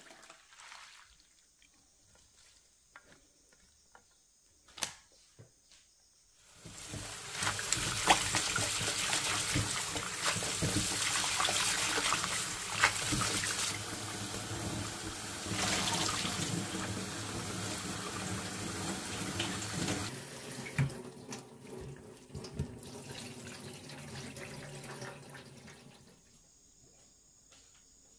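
Tap water running into a sink while sweet potato stems are rinsed by hand. It starts about six seconds in and runs strongly, then drops to softer splashing and trickling about two-thirds through.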